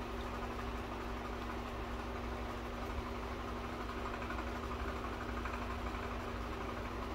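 A steady low hum with one constant tone over a low rumble, unchanging throughout.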